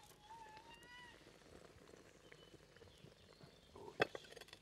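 A short, faint meow-like call near the start that rises slightly in pitch. About four seconds in comes a sharp clink of tableware, with a few small clicks around it.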